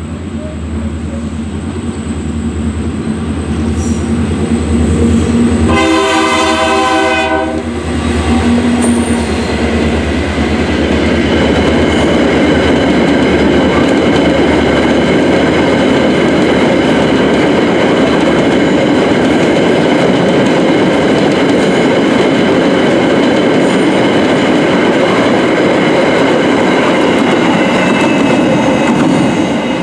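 Freight train with two diesel locomotives approaching, engines running with a low drone; the horn sounds one blast of about a second and a half, about six seconds in. From about ten seconds in, the locomotives pass and a long string of clinker hopper wagons rolls by, steel wheels clattering over the rail joints with a loud, steady rumble.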